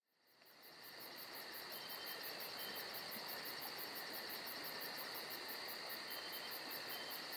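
Crickets chirping in a steady night-time insect chorus that fades in over the first second. It has a constant high trill and a rapid, even pulsing very high up, at about five pulses a second.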